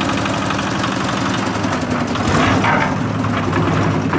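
Cement mixer's small diesel engine running steadily, growing a little louder about two seconds in.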